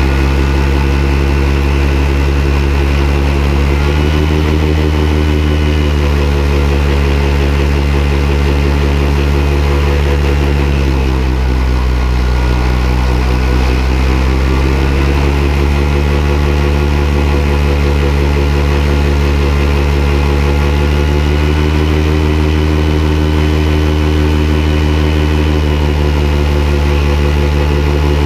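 Paramotor engine and propeller running steadily in flight. The pitch rises about four seconds in, sags around eleven seconds and climbs back a few seconds later as the throttle is worked.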